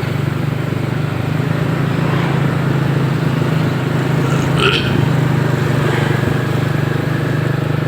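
Motorcycle engine running with a steady, even drone. A brief high chirp comes about halfway through.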